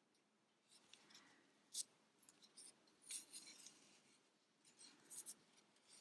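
Faint rustling and scraping of cotton yarn being drawn through crocheted stitches with a metal yarn needle, in a few short bursts with a sharp tick a little under two seconds in.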